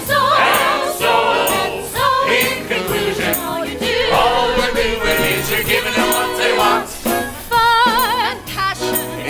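A live pit band playing an upbeat show tune for a stage musical, with held, wavering sung notes and a steady bright percussion beat.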